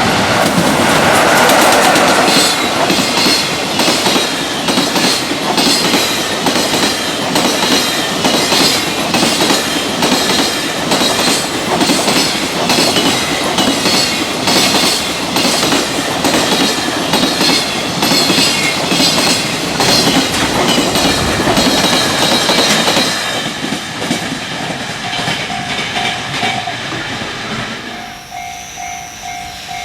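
Freight train passing at speed, its wheels hammering over the rail joints in a rapid, regular clatter that fades after about 23 seconds. Near the end a level-crossing warning bell rings in a steady pulsing beat.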